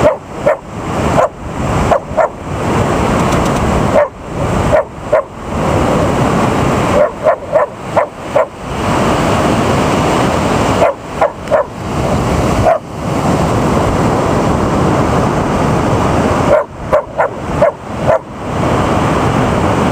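American Eskimo dog barking in short clusters of a few sharp barks, with pauses of a few seconds between clusters. The barks come over the steady rush of surf and wind.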